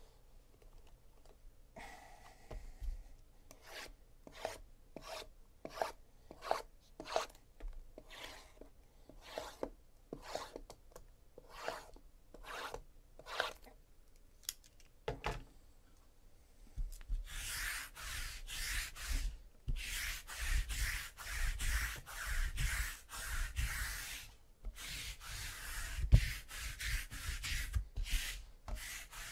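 Small cardboard Topps Tier One card boxes being shuffled on a tabletop: single scrapes and taps one to two a second, then from a little past halfway a fast run of rubbing and scraping as the boxes slide over each other and the table, with one sharper knock near the end.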